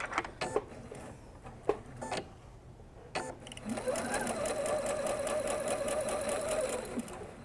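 A few light clicks and handling knocks, then about halfway through an electric sewing machine starts stitching a seam at a steady speed, a steady whir with a fast needle rhythm, and stops shortly before the end.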